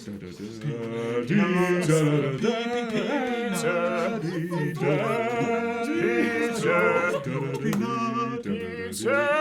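Male voice singing a chant-like tune with long held notes, with no instruments heard.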